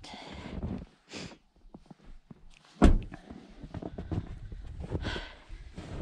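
Footsteps through snow, with one sharp, loud thump about three seconds in.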